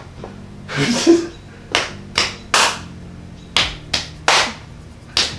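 Hands smacking: fists slapped into palms in two quick sets of three, about a second apart, with another set starting near the end. A brief, louder rustling burst comes about a second in.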